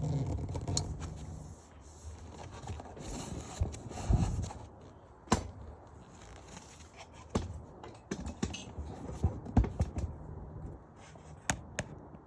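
Irregular clicks, knocks and scrapes of hard objects being handled, with a low hum in the first second or so; the sharpest knocks come about five seconds in and again near ten seconds.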